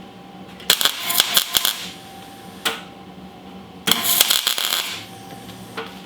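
Wire-feed (MIG) welder laying short welds on sheet-metal floor pan: two bursts of sharp, dense crackling about a second each, with a brief zap between them, over a steady low hum.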